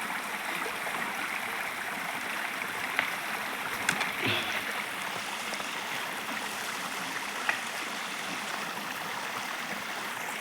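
A stream flowing with a steady rush of water, with a few brief ticks about three, four and seven and a half seconds in.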